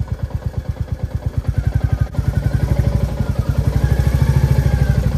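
Small two-wheeler engine running at low speed with a steady, even putter while the bike is ridden slowly into a parking spot; it gets a little louder about two seconds in.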